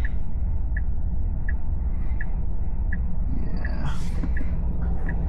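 Tesla's turn-signal indicator ticking evenly, about once every three-quarters of a second, over a steady low cabin hum.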